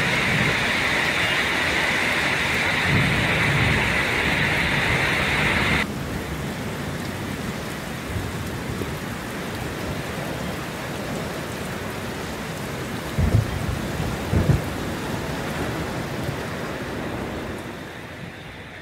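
Heavy rain falling as a steady hiss. It drops abruptly to a softer hiss about six seconds in, and a few brief low thumps come about two-thirds of the way through.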